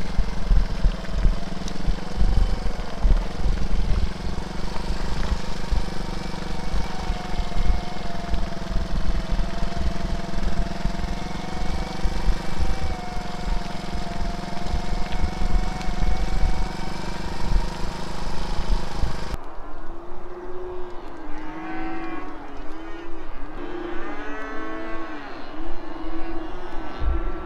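A farm bike's engine running steadily for about nineteen seconds, its pitch wavering slightly. It cuts off abruptly to several cows mooing over one another, call after call.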